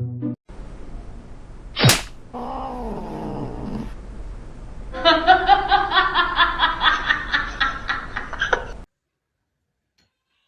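Domestic cat vocalizing: a sharp click, then a drawn-out call falling in pitch, then a longer run of rapid pulsed yowling at about four to five pulses a second that stops abruptly.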